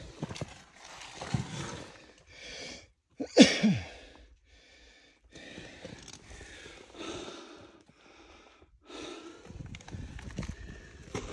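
A man breathing hard in quick, noisy breaths about once a second from the exertion of climbing rock ledges, with a short grunt of effort that falls in pitch, the loudest sound, about three and a half seconds in.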